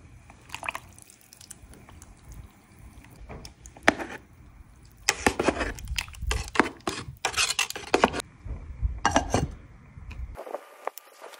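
Thick red sauce sliding and dripping out of a glass jar into a small pot of broth. Then metal tongs clink and scrape against the pot as the liquid is stirred, with many quick clicks over several seconds.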